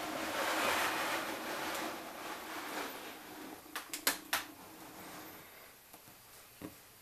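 Plastic reptile tub sliding along a rack shelf with a long scrape, as it is pushed shut, followed about four seconds in by three sharp plastic clicks and knocks as the tubs are handled, and a small knock near the end.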